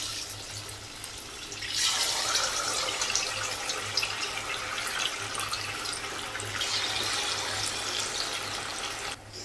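Marinated chicken pieces sizzling and crackling in hot oil as they go into the pan; the sizzle grows louder about two seconds in.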